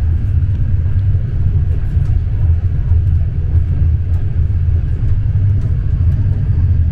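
Steady low rumble of a moving train heard from inside the carriage, with a few faint scattered clicks.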